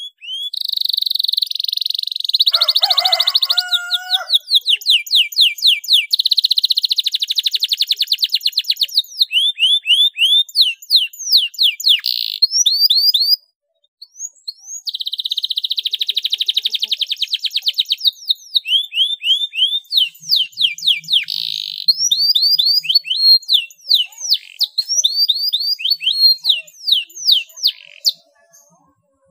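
Domestic canary singing a long song of fast rolling trills and quick repeated sweeping chirps, high and clear, with a break of about a second near the middle.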